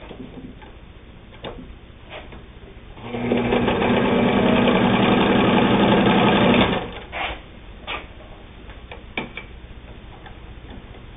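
Singer 99 sewing machine stitching through two layers of heavy split leather. It runs at a steady speed for about four seconds, starting about three seconds in, with a few sharp clicks before and after the run.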